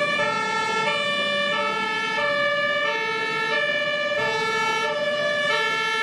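Fire engine's two-tone siren, switching steadily between a low and a high note about every 0.6 s.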